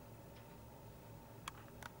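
Near silence inside a car cabin: a faint steady low hum, with two small clicks about a third of a second apart near the end.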